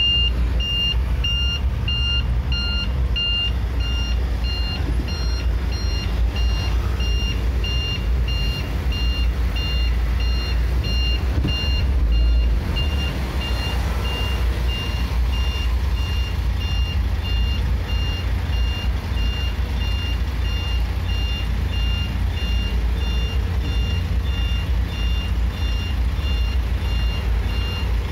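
Electronic warning beeper in a vehicle cab beeping steadily, about two high beeps a second, over the low rumble of the engine. About twelve seconds in the rumble briefly grows louder and the beeps fade for a moment, then carry on.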